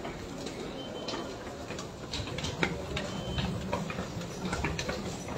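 Scattered sharp clicks and taps at uneven intervals over a low background murmur that swells in the middle.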